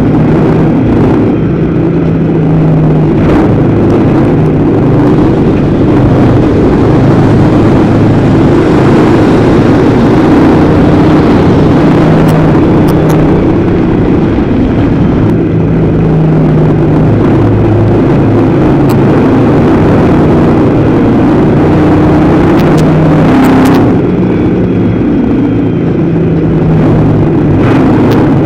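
Dirt-track race car's engine running hard at racing speed, heard onboard, its note shifting up and down as the car goes through the turns, with a few sharp ticks over it.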